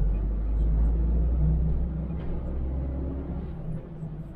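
MAN truck's diesel engine running, heard from inside the cab, with a deep rumble that drops away near the end.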